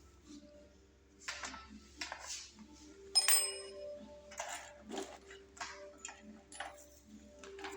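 Metal tools and motorcycle parts clicking, knocking and clinking at irregular intervals during work on the headlight assembly, with a sharp ringing metallic clink about three seconds in.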